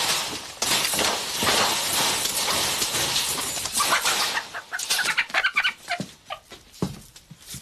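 A steady rushing noise that dies away after about four seconds, giving way to a quick run of short, sharp animal calls that thin out toward the end.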